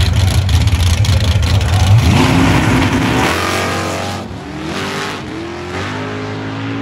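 Two drag-race cars, a first-generation Chevrolet Camaro and a Fox-body Ford Mustang, leaving the start line. A deep, loud engine rumble while staged gives way about two seconds in to full-throttle launches. The engines rev up through several gear changes and fade as the cars run down the track.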